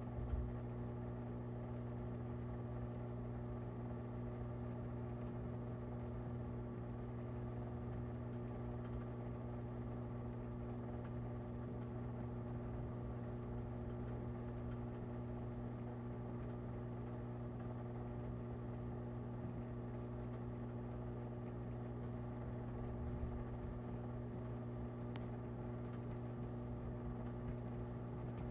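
Steady mechanical hum holding several fixed tones, with a few faint ticks.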